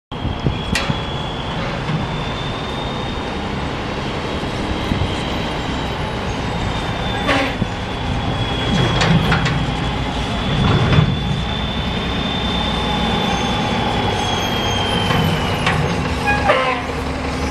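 Diesel semi-tractor pulling a loaded dump trailer moves slowly, its engine a low rumble, with a high steady whine over it that sinks slightly and stops near the end. Several sharp metallic clanks come through along the way.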